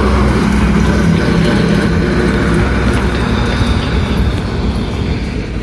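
Road traffic: a motor vehicle's engine running close by, a steady low rumble with an engine hum that eases off after about three seconds.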